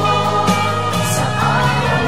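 Background music: a song with singing over long held chords.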